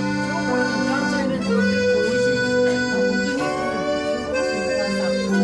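Harmonica playing held, reedy notes, some bending in pitch, over strummed acoustic guitars.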